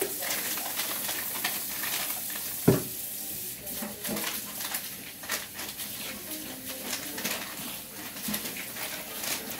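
Kitchen work at the counter: dishes, pots and utensils clinking and scraping over a steady hiss, with one sharp knock a little under three seconds in.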